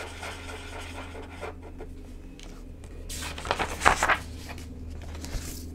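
Marker scratching on paper as circles on a printed sheet are colored in, then louder rustling and shuffling of paper sheets from about three seconds in.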